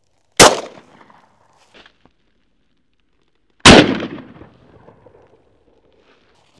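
Shotgun fired twice at a dove, about three seconds apart; each very loud shot trails off in an echo lasting about a second.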